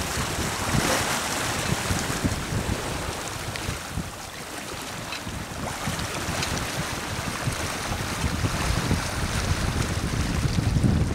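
Water rushing and splashing along the hull of a sailing yacht under way, with gusty wind buffeting the microphone, heavier near the end.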